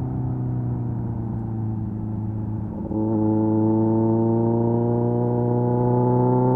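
Kawasaki Z900's 948cc four-cylinder engine through an SC-Project exhaust, on a closed throttle with a quieter, uneven note for about three seconds. The throttle then opens and the engine pulls, its note rising slowly in pitch as the bike accelerates.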